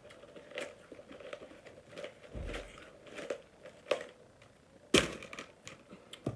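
Rustling and crinkling as items are handled and packed into a bag, with scattered clicks and a sharp knock about five seconds in.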